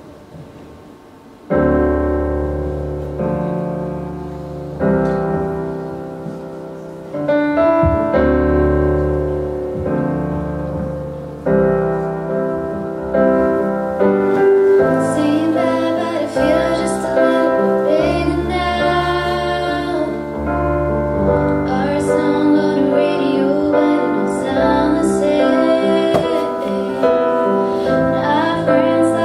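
Piano backing track played over the hall speakers, starting with slow chords struck every few seconds about a second and a half in, each fading away. Two teenage girls' voices join, singing into microphones over the piano from about halfway through.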